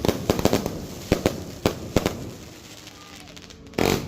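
Consumer firework cake firing a rapid string of shots, several bangs a second, which thins out about two seconds in; one loud blast comes near the end.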